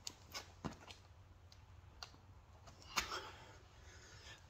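Hands and feet slapping and knocking on a foam exercise mat during a burpee: a quick run of light taps, a single tap about two seconds in, then a louder knock about three seconds in as the feet land.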